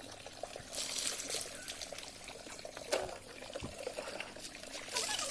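Water splashing and pouring in two rushes, about a second in and again near the end, with a single sharp knock around three seconds.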